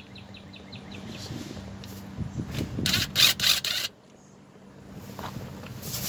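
Ratchet wrench clicking quickly, about ten clicks a second, as the transmission pan bolts are turned out, followed about three seconds in by a louder metallic rasping and scraping.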